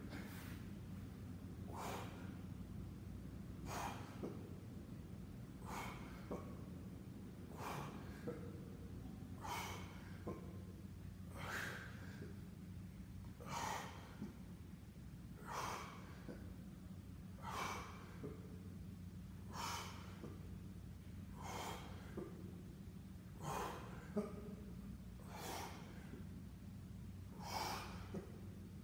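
A man's breathing during leg raises, one short breath about every two seconds in time with the reps, over a steady low hum.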